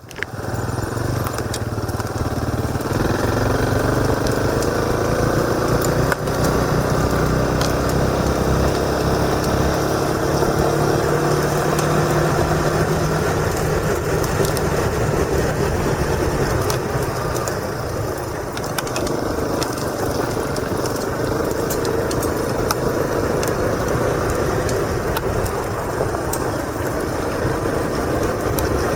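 Motorcycle engine running under way, its pitch climbing steadily for about ten seconds as the bike speeds up, then holding steadier, with wind and road noise picked up by a helmet-mounted camera.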